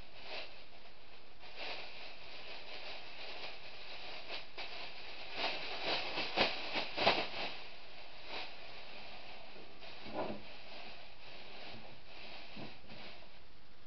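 Thin plastic bin bag rustling and crackling as it is shaken open and pushed down into a plastic bin, in a run of crinkles about halfway through and one more crinkle a few seconds later, over a steady hiss.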